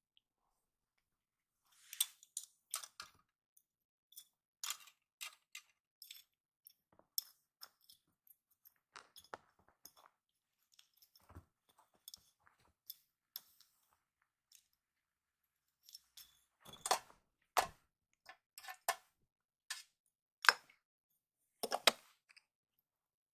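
A kitten at play: irregular light clicks, taps and scuffs as it bats at and knocks over small plastic toy traffic cones and barriers, then paws at a box. A few sharper knocks stand out near the end.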